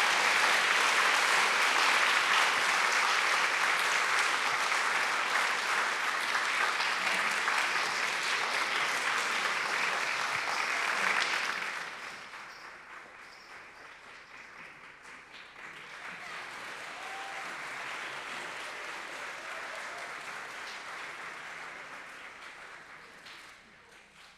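Audience applauding: a loud, steady round that dies away about halfway through, then a second, quieter round that fades out near the end.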